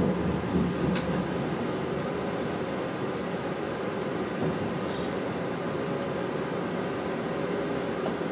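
Train running slowly over curved station tracks and points, heard from the driver's cab: a steady rumble and hum. A thin high squeal lasts from about half a second to five seconds in, with a sharp click about a second in.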